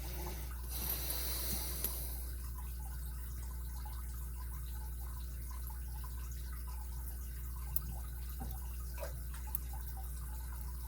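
Small, sparse clicks and light scraping of a lock pick probing the pins inside a Kryptonite padlock's cylinder, under a steady low hum. A brief scraping rustle comes in the first two seconds.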